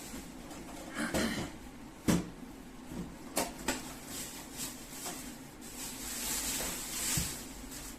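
Handling noises while unpacking a microwave: a sharp knock about two seconds in, a few lighter clicks and knocks, and rustling of packaging.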